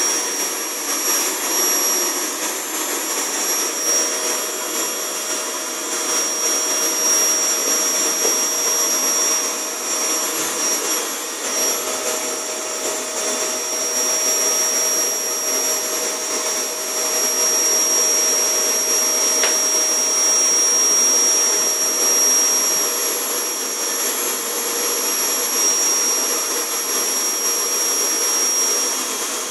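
Vacuum cleaner (hoover) running steadily, a continuous motor rush with a thin high-pitched whine over it.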